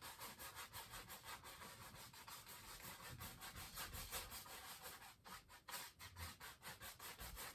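Faint, quick back-and-forth strokes of a paintbrush scrubbing oil paint over a canvas, several strokes a second, as the whole canvas is covered with a base coat.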